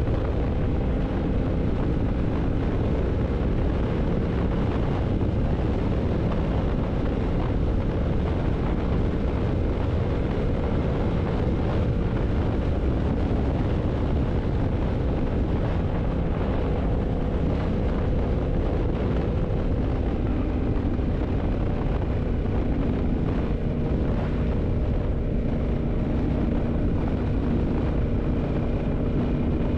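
Yamaha MT-07's 689 cc parallel-twin engine running at a steady cruise, mixed with a heavy rush of wind on the microphone.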